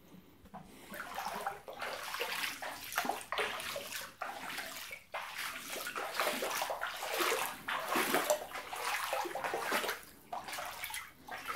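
Floodwater sloshing and splashing across a flooded basement floor, an uneven watery noise that surges and eases, briefly dropping away near the start and again about ten seconds in.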